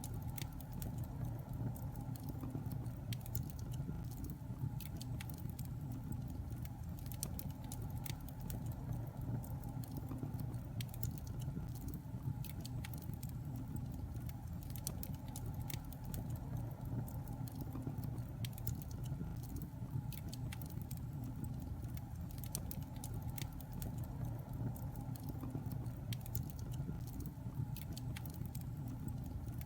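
Wood fire burning in a fireplace: a steady low rumble of the flames with many small, irregular crackles and pops from the burning wood.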